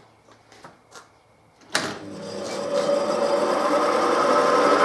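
Vintage Dominion Elliot 10 three-in-one woodworking machine switched on from the mains: a sharp clunk about two seconds in, then its electric motor runs up to speed over about a second and settles into a steady hum.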